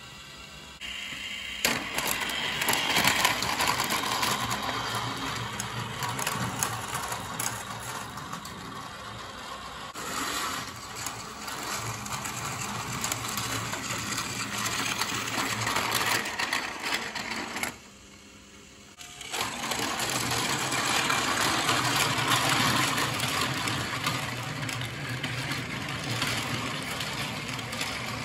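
Plarail battery-powered toy train running on plastic track: a steady motor and gear whir with small clicks from the wheels and track joints. The sound falls away for about a second partway through, then resumes.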